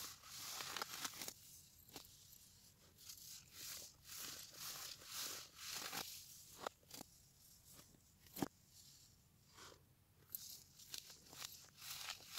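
Compressed, dyed baking soda blocks crumbled and crushed between the fingers: soft, irregular crunches and powdery crumbling, with one sharper crunch about eight seconds in. The audio plays in reverse.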